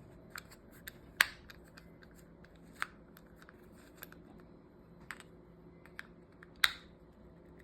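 Scattered light clicks and taps of small plastic parts of a disassembled breast pump being handled, with two sharper clicks about a second in and near the end.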